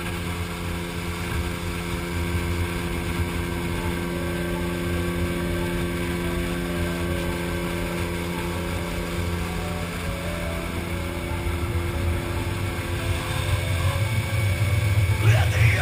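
Outboard motor of a small boat running steadily while under way: an even, unchanging hum.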